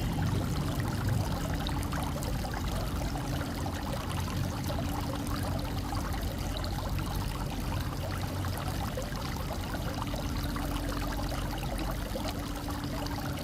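Water fountain with water pouring and splashing steadily.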